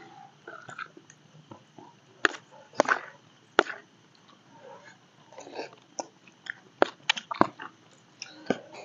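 People eating from plastic plates: spoons and forks clicking and scraping against the plates, with chewing, in scattered short sharp clicks.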